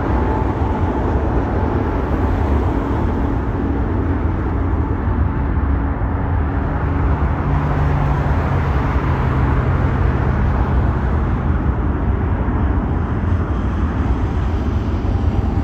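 Rolls-Royce Trent XWB engines of an Airbus A350-900 running at taxi power: a steady low rumble with faint steady whining tones.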